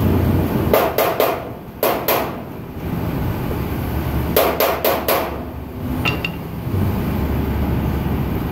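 Hammer striking steel in short quick runs: three strikes, then two, and about four seconds in a run of four, followed by a faint ringing ping.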